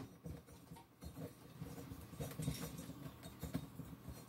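Faint light clicks and scraping of a spark plug being handled and turned into a small engine's finned cylinder head by hand.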